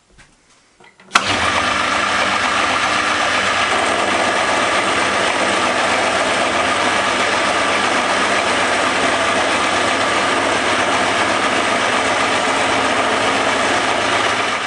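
Milling machine switched on with a click about a second in, then running steadily as its end mill cuts across a metal casting to machine it flat; it begins to run down at the very end.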